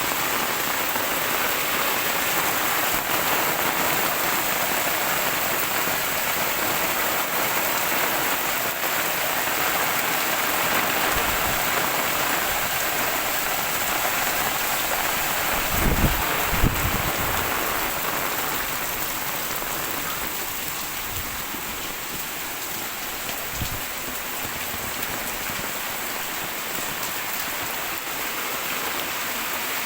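Heavy rain falling steadily as a dense hiss, easing slightly past the middle. A couple of brief low thumps come about halfway through.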